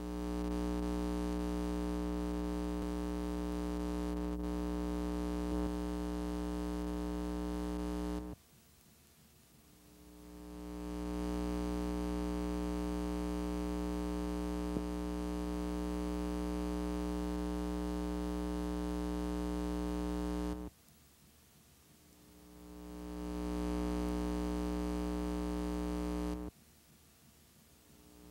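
Electrical mains hum: a steady low buzz with many evenly spaced overtones. It cuts off abruptly three times, about 8 s, 21 s and 26 s in, and swells back up slowly after each short gap.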